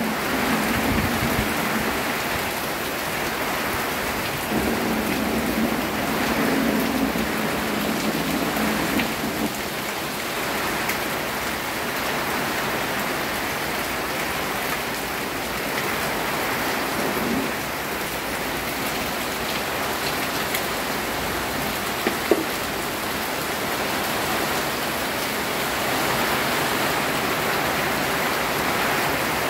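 Torrential rain pouring steadily onto a flooded dirt yard and the leaves of surrounding trees, a dense, even hiss. A single sharp click sounds about three-quarters of the way through.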